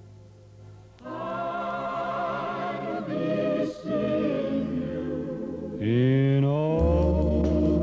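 Background music: voices singing long held notes with vibrato, starting about a second in after a faint hum. Near the end, a rising slide and a low bass line come in.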